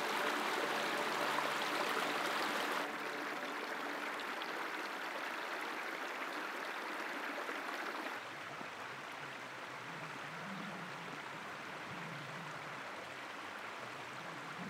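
Small mountain stream running and trickling over rocks, a steady rush of water that is loudest in the first few seconds and grows fainter after about eight seconds.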